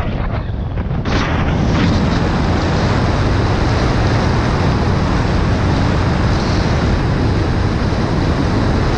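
Motorcycle at road speed heard from a helmet camera: engine drone under heavy wind noise on the microphone. About a second in the sound jumps louder and then holds steady while the bike overtakes a lorry.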